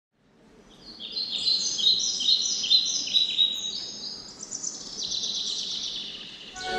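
Birdsong fading in from silence: quick runs of high, repeated chirps, then a long, steady high trill in the second half.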